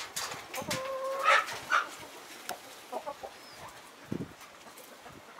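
Chickens clucking: a burst of short clucks with a brief held call about a second in, then fainter scattered clucks.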